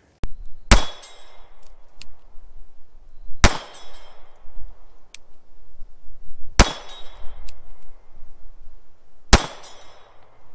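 Four 9 mm shots from a Ruger MAX-9 pistol, fired slowly about three seconds apart, each followed by the ringing clang of a steel reaction target being hit.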